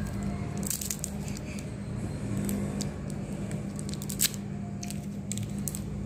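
Plastic wrappers of Vicks cough drops crinkling and crackling as they are handled by fingers, in scattered sharp crackles, over a steady low hum.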